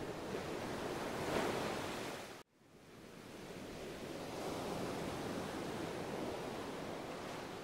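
Steady hissing background noise that swells briefly about a second and a half in. It cuts out abruptly about two and a half seconds in, then fades back up.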